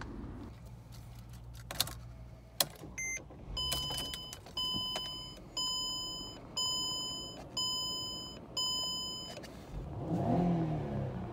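Two clicks and a short beep as the ignition is switched on in a 2007 Mercedes-Benz E-Class, then the dashboard warning chime sounds six times, about once a second. Near the end the engine cranks and starts.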